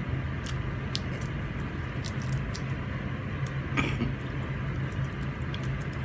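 Small clicks and crackles of cooked prawn shells being peeled by hand, with the mouth sounds of eating, over a steady low hum.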